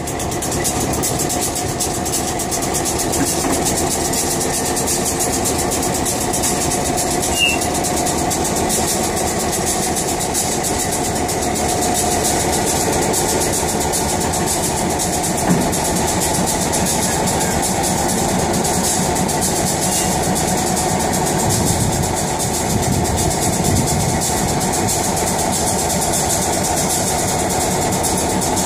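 Diesel locomotive engine idling steadily while the locomotive is turned on a railway turntable.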